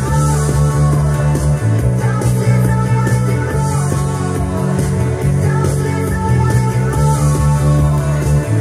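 Electric bass guitar plucked with the fingers, playing long low notes that change every second or two, along with a rock music track.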